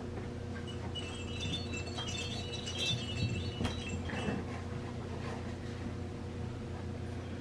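Light chime-like ringing, several high tones overlapping for about two seconds from around a second and a half in, over a steady low hum.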